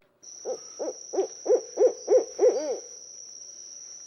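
An animal giving a rapid series of about eight short hooting notes, roughly three a second, that stop about two-thirds of the way through, with a steady thin high tone running behind them.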